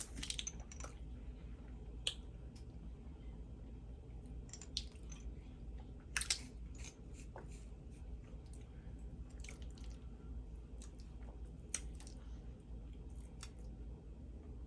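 A person chewing a mouthful of spaghetti, with scattered short wet clicks and smacks from eating.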